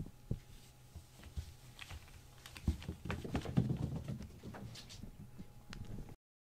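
Kittens scuffling and scampering on a foam floor mat: light paw taps and soft thumps, scattered at first and busiest from about two and a half to five and a half seconds in. The sound cuts out abruptly just before the end.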